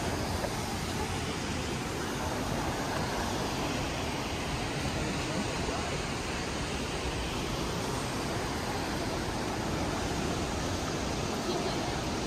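Steady rushing of a waterfall, an even, unbroken roar of falling water.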